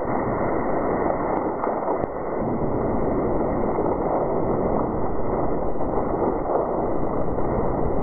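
Seismometer ground-motion recording sped up into the audible range: a steady rushing, hiss-like rumble of background ground noise with no distinct arrival standing out.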